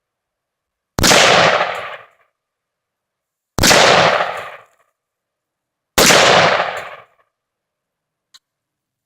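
Three rifle shots about two and a half seconds apart, each ringing out with an echo that dies away over about a second. A faint click follows near the end.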